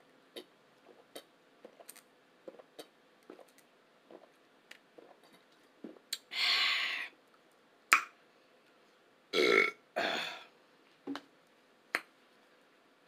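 A person burping: one long burp about six seconds in and two shorter ones close together around ten seconds, among small clicking eating and mouth sounds.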